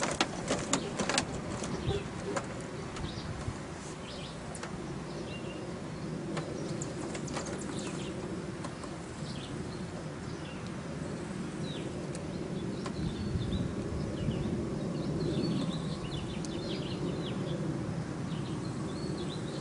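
Birds chirping over a steady low rumble, with a few sharp clicks in the first second or so.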